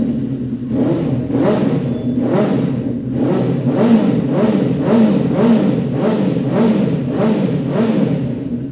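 Benelli 600i's 600 cc inline-four engine with an aftermarket SC-Project exhaust, revved in quick throttle blips about twice a second, the pitch rising and falling with each blip.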